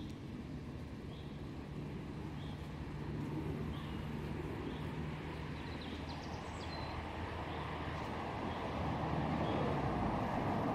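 Pasture ambience: a steady low engine-like hum, a bird chirping at regular intervals of about a second, and the rustle of a mare grazing close by, louder near the end.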